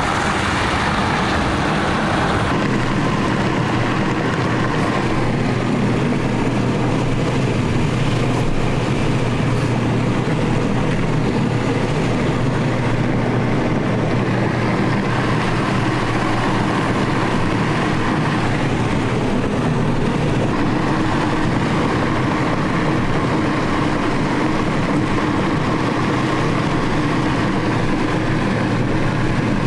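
A car driving: a steady drone of engine and road noise, with a hiss that eases off about two seconds in.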